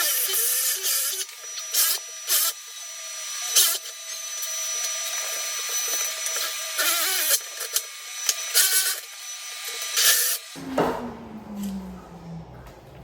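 Half-inch-chuck power drill driving a bit through a wooden door in a lock-boring jig. The motor whines steadily under repeated loud grinding bursts of cutting, then stops about ten and a half seconds in, followed by quieter low rumbling.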